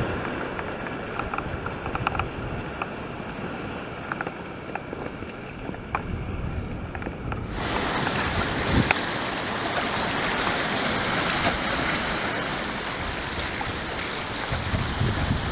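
Sea surf washing and splashing among shoreline rocks, with wind on the microphone. Light splashing ticks sound in the first half, and about halfway through the sound turns suddenly brighter and hissier.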